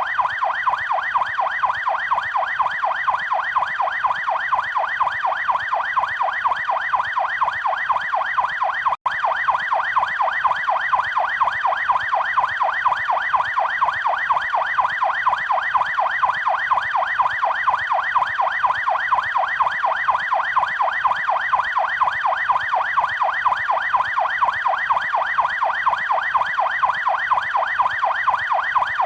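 Electronic police siren in fast yelp mode, its tone sweeping rapidly up and down several times a second without pause, broken only by a split-second dropout about nine seconds in.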